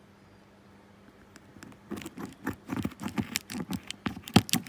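Sealed plastic wrapping crackling and crinkling as it is cut with scissors and pulled off a cardboard box. It comes as quick, irregular crackles that start about two seconds in.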